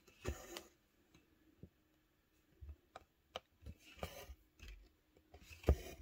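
Faint handling noise from cross-stitch work: scattered small clicks and brief rustles of needle, floss and fabric, with a soft thump near the end.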